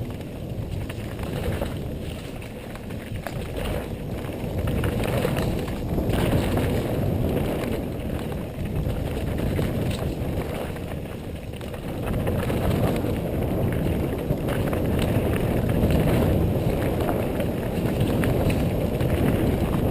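Wind rushing over the microphone and tyres rolling on a dirt trail during a fast mountain-bike descent, with scattered clicks and rattles from the bike.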